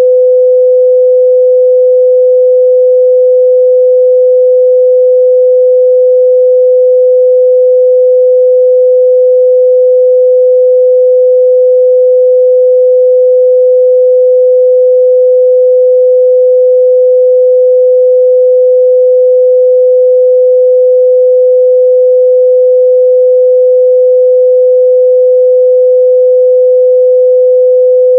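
Continuous 505 Hz sine-wave test tone: a single pure, steady mid-range hum at constant loudness, used to check a speaker's or headphone's mid-range response.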